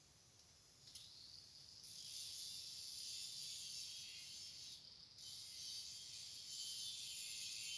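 Electric welding arc sizzling and crackling. It strikes about a second in and builds, breaks off briefly around the middle, then restarts and runs on.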